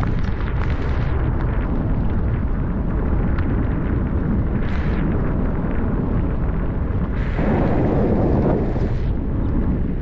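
Wind buffeting the microphone while moving along a street: a steady low rumble with a louder rush lasting about two seconds near the end.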